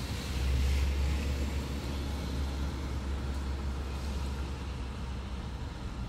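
Rain and wind noise from the typhoon: a steady low rumble with hiss, swelling for a second or so near the start.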